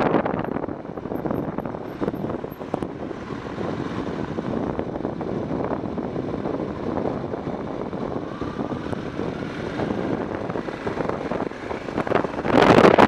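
BMW F650 motorcycle under way: engine running with heavy wind rush over the microphone, growing louder near the end.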